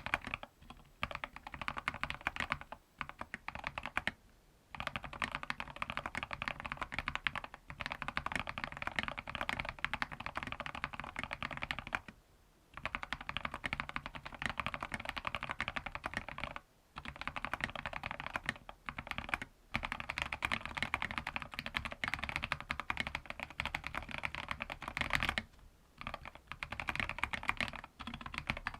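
Fast, continuous typing on a mechanical keyboard fitted with Gateron Pro Yellow linear switches, a dense patter of keystrokes broken by several brief pauses.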